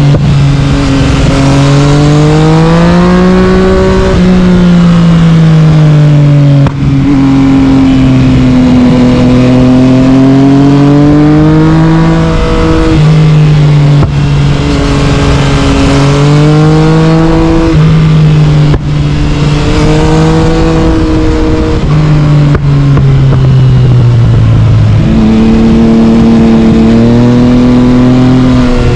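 Yamaha MT-09's inline-three engine, breathing through an Akrapovic carbon exhaust, under way on the road. The revs swing up and down continuously, with four very short breaks in the sound and a sudden jump in pitch near the end.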